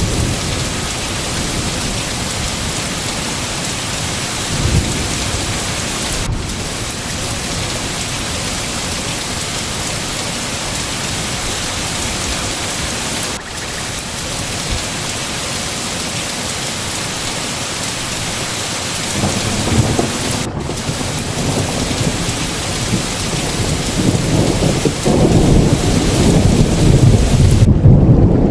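Steady heavy rain with thunder rumbling in the background, growing louder and deeper in the last several seconds.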